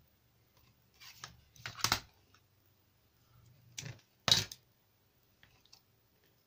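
Paper handling at a craft table: crackling and rustling of a patterned paper strip with double-sided tape, in two short bursts about a second in and about four seconds in, the second ending in a sharp knock on the wooden table.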